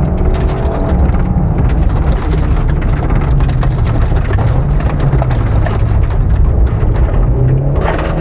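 Opel Corsa A GSI rally car's four-cylinder engine running hard, heard from inside the cabin, its note dropping and climbing again a few times as it is driven along a dirt stage. A dense patter of gravel and stones strikes the underbody and wheel arches.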